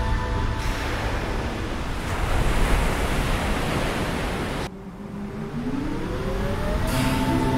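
Rushing, crashing water of a humpback whale breaching and falling back into the sea, a loud even rush that cuts off suddenly about two-thirds of the way through. A rising tone follows as music comes back in.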